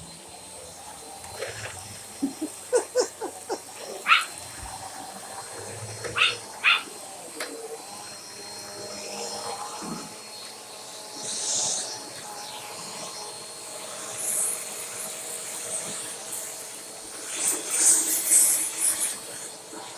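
A vacuum sweeper running steadily while a pet dog barks at it in short, repeated outbursts, with the biggest clusters in the first few seconds and again near the end.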